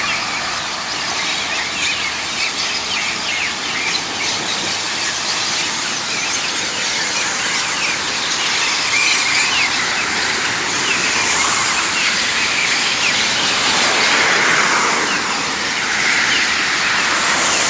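A dense chorus of many birds chirping and squealing together, calls overlapping without pause, over a steady hiss of road traffic.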